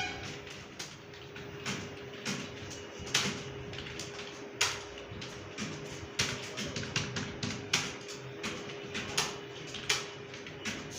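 Computer keyboard being typed on: irregular key clicks, a few a second, with a faint steady hum underneath.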